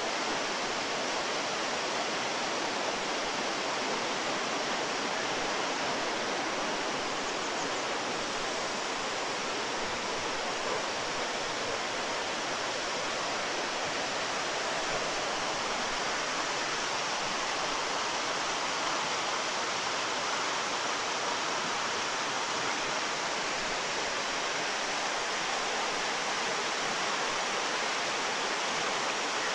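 Waterfalls, with a steady, even rush of falling water.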